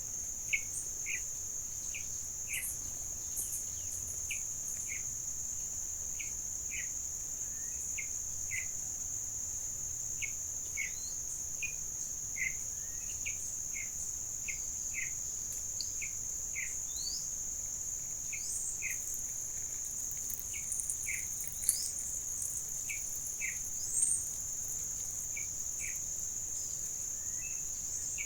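Insects holding a steady, high-pitched drone, over which birds give short downslurred notes, one or two a second, with a few higher chirps.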